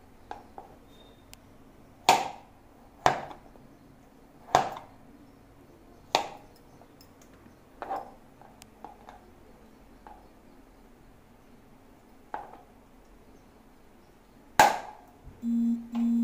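Kitchen knife slicing through boiled potatoes and knocking on a plastic chopping board: about seven sharp knocks at an uneven pace, a second or two apart, with fainter clicks between. A short low hum near the end.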